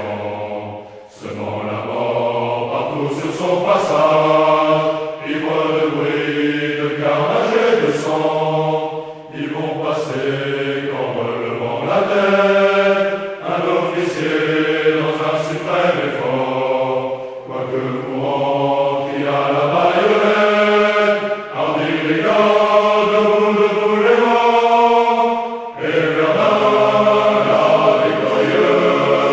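Background music: a choir singing slowly in long held notes, like a chant.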